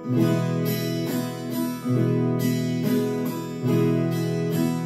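Viola caipira, the ten-string Brazilian folk guitar, strummed with a thumb pick in the toada rhythm of down, up, down, down. The chord changes about every two seconds.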